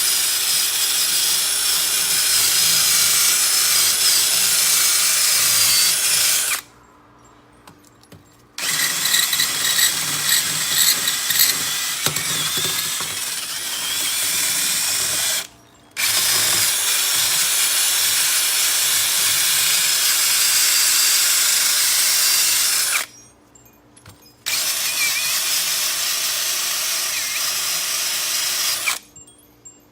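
A power-driven wire wheel scrubbing the steel yoke of a driveshaft clean where the universal joint's bearing caps seat, removing loose debris. It runs in four spells of several seconds each, stopping briefly three times.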